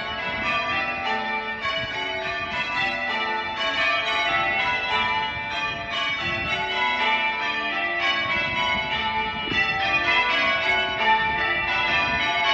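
Change ringing on a ring of six church bells with a tenor of about 10 cwt: five bells ring changes in a Doubles method with the tenor striking behind, a steady unbroken stream of strokes at several pitches, several per second.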